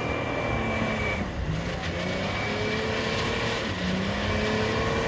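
Off-road 4x4 engine revving under way, its pitch climbing, dropping back and climbing again several times over a steady rush of noise.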